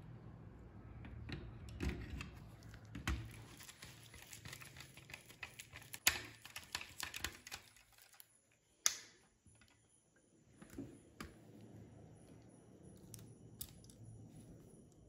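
Light plastic clicks and taps as a toy model car's plastic body shell and chassis are handled and fitted together, with one sharp click a little past halfway.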